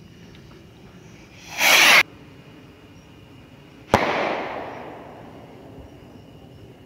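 A Black Cat RPG consumer skyrocket leaving its launch tube with a short rising whoosh that cuts off sharply, then about two seconds later a sharp bang as it bursts overhead, dying away over a second or so.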